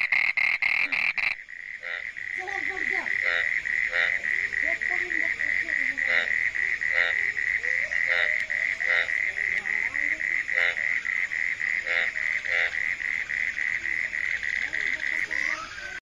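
Toads calling in a chorus. A loud, fast-pulsing call breaks off suddenly about a second in. After that a high, steady trill of rapid pulses carries on, with short croaks from other frogs breaking in every second or so.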